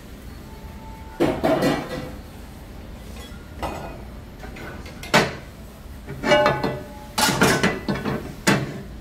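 Clanks and clinks of metal kitchenware: a large frying pan being handled and tilted on a gas range's grate, with knocks of pots and utensils. There are about six separate bursts, some ringing briefly, over a steady low hum.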